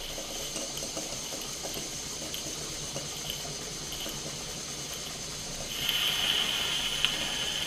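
Stuart S50 steam mill engine ticking over slowly, its exhaust steam gurgling into the chuff pot. A steady hiss grows louder about six seconds in.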